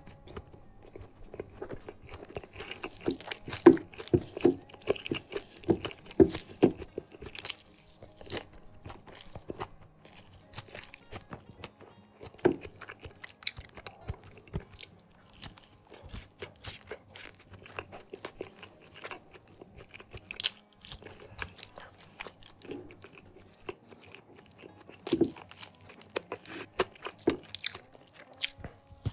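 Close-miked chewing and crunching of crispy fried chicken with rice and sambal, eaten by hand: irregular crunches and mouth sounds, densest and loudest a few seconds in and again near the end.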